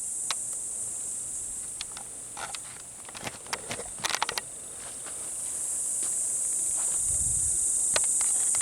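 Tropical jungle insect chorus: a steady, high-pitched hiss, 'like a big hiss', that swells louder over the second half. A few sharp clicks and crackles come about four seconds in.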